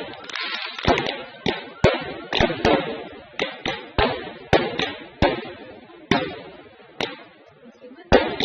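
Fireworks going off: a rapid, irregular series of sharp bangs, about two a second, each trailing off in a fading rumble.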